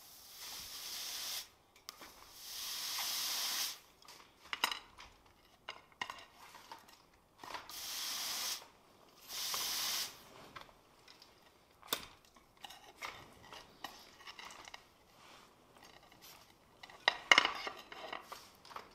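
Red-hot steel hissing and sizzling in bursts of about a second as it meets the wet steel plate on an ice anvil and flashes water to steam, mixed with sharp metal clinks and taps of tongs and hot steel on the plate, loudest near the end.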